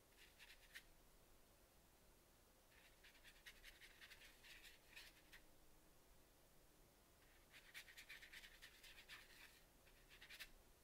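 Fine paintbrush bristles brushing and dabbing on textured watercolor paper: faint scratchy strokes in three bouts of quick short touches, a brief one at the start, then two longer ones a few seconds apart.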